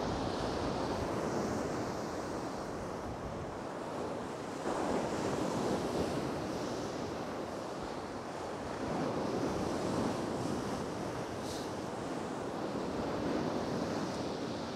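Rough sea surf breaking on a shingle beach, the wash swelling and easing about every four seconds.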